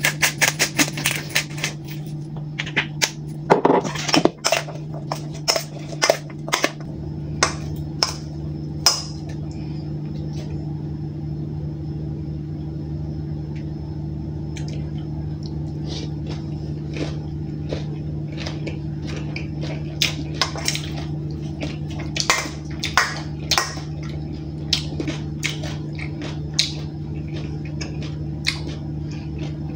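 Metal spoon clinking and scraping against a stainless steel mixing bowl, a quick run of clinks in the first nine seconds and another cluster about two-thirds through, over a steady low hum.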